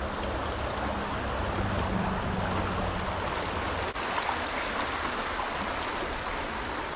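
Steady rush of moving water from the creek and falls at Ozone Falls.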